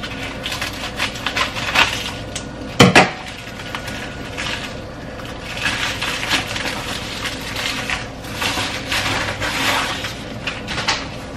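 A small gift package being cut open and unwrapped by hand: scraping, rustling and the handling of packaging, with one sharp knock about three seconds in.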